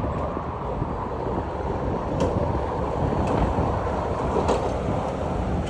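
Distant low rumble of a Boeing 777-300ER's twin GE90 jet engines on final approach, mixed with wind buffeting the microphone.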